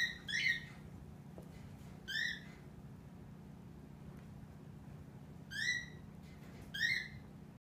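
Cats play-fighting, with five short high-pitched squeaking calls over a faint low hum: two together at the start, one about two seconds in, and two more near the end.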